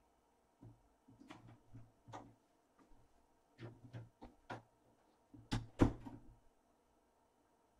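Scattered light taps and knocks from kittens moving about and feeding in a wire dog crate with steel bowls. Two louder knocks come close together about two-thirds of the way through.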